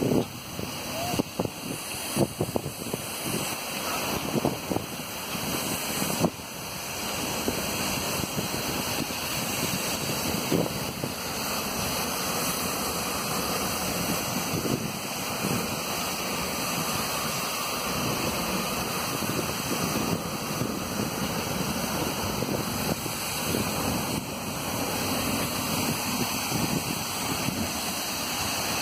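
Fire hose nozzles spraying water in a steady rushing hiss, alongside a burning hydrocarbon fire. A few short thumps come in the first six seconds.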